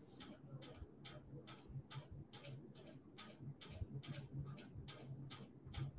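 Faint, steady ticking at about four ticks a second, with a low hum coming and going underneath.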